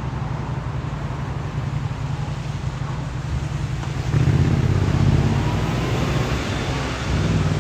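Steady low rumble of a running vehicle, growing louder about four seconds in.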